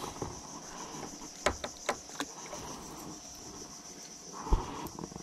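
A steady, high-pitched insect chorus. A few sharp clicks come about a second and a half to two seconds in, and a single thump comes near the end.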